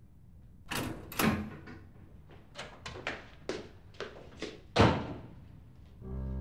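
A room door being opened and shut: two loud knocks about a second in, a run of lighter clicks, then a loud thud of the door about five seconds in. A held music chord begins near the end.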